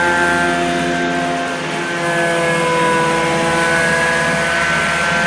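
Prochem Performer truck-mount carpet-cleaning machine running on its Nissan engine: a steady mechanical drone with several whining tones, which shift slightly in pitch about two seconds in.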